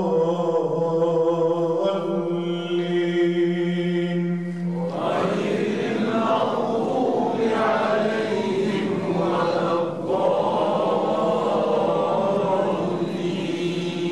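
Solo Quran recitation by a man through a microphone, a long melodic note held steady for about five seconds. About five seconds in it breaks off and a fuller mix of several voices takes over.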